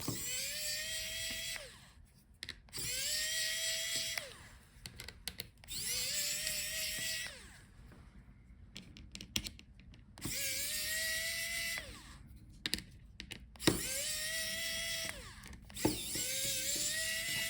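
Small electric screwdriver backing out laptop hinge screws in six short runs of about a second and a half each. Each run whines up to a steady pitch and winds down, with light clicks of screws and handling between the runs.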